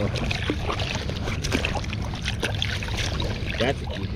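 Shallow water sloshing and splashing close by as a salmon is worked out of a gillnet by hand, with many small splashes and drips over a steady low rumble.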